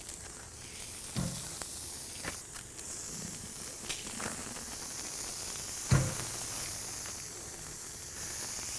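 Food sizzling on a hot open-flame grill, a steady hiss, with two dull thuds as raw beef patties are laid on the grate, the louder one about six seconds in.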